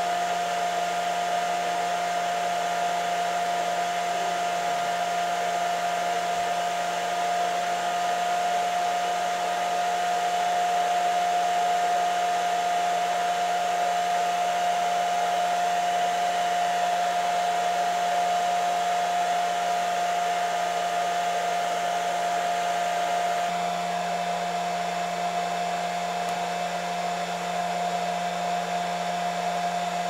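Handheld electric hair dryer running steadily: a continuous rush of blown air with a steady whine over it, stepping down slightly in level about three-quarters of the way through.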